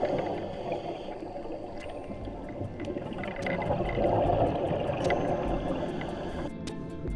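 Underwater water noise, a bubbling, gurgling wash that swells about four seconds in, dotted with scattered sharp clicks. Music comes in near the end.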